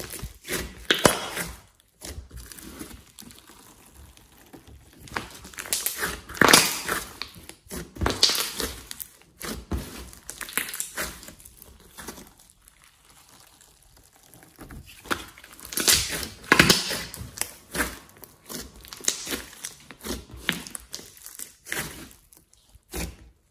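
Hands kneading, squeezing and pressing a large mass of glossy slime, giving wet squishing and popping sounds in bursts of a second or so, with quieter gaps between.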